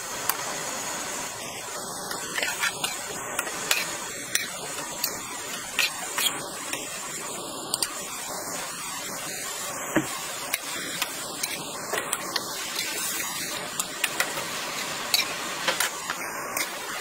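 Crisp fried dough strips clicking and rustling as they are stirred and tossed with a plastic spatula in a large steel pan, over a steady hiss. The clicks come irregularly, several a second.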